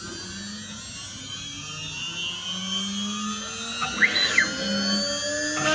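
CNC router spindle motor spinning up after the job is resumed, its whine rising steadily in pitch and growing louder. About four seconds in, a short motor whine rises and falls as the machine moves, and near the end the sound turns louder and fuller.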